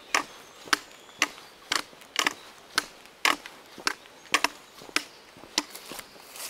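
Footsteps of a hiker walking uphill: sharp, even taps about two a second.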